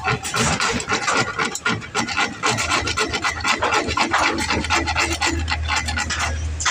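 Rapid, repeated rasping strokes of a hand tool scraping or cutting, with a steady low hum coming in past the middle.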